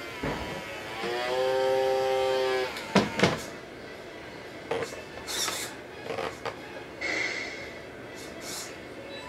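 A single horn-like blast lasting about a second and a half, then two sharp clicks and a few short hisses, from a model truck.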